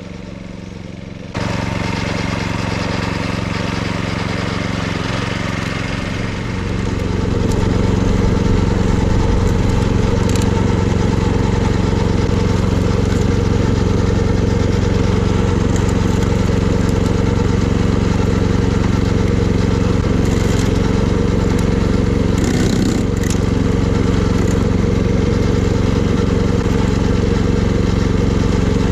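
Kyoritsu AZ646 Wing Mower, a walk-behind levee and slope mower, with its small engine running steadily while cutting grass. It jumps louder suddenly about a second in and rises again a few seconds later, then holds steady.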